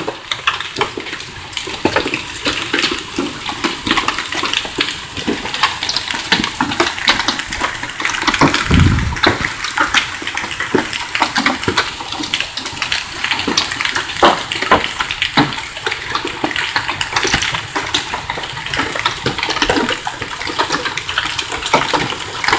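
Heavy hailstorm with rain: a steady rush of falling water, thick with the quick ticks and knocks of hailstones hitting tarp-covered vehicles and the ground. A single low thump about nine seconds in.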